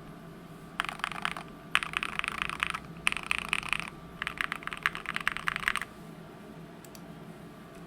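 Typing on a Mode65 custom mechanical keyboard with moyu.studio Poseidon switches in an FR4 plate and DSS keycaps: four short runs of rapid keystroke clacks, the last and longest ending about six seconds in.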